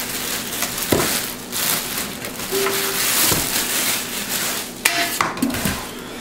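Clear plastic packing bag crinkling and rustling as it is pulled off and handled, with scattered crackles and a brief squeak about two and a half seconds in.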